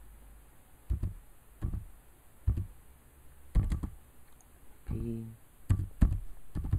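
Computer keyboard keys pressed one at a time, about eight separate clacks spaced irregularly, a second or so apart, with two close together near four seconds and a few quicker ones near the end. A brief voiced hum comes about five seconds in.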